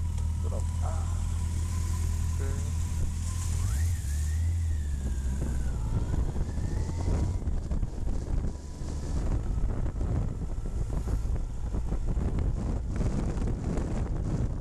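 Motorcycle engine running slowly as an oncoming car passes close by. From about six seconds in, wind buffets the helmet-mounted microphone as the bike rides on.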